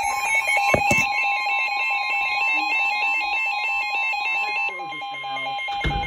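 Weather alert radios sounding a NOAA Weather Radio warning alarm: a steady alert tone with the radios' fast high-pitched alarm beeping over it. The beeping stops about two-thirds of the way in, and the steady tone carries on.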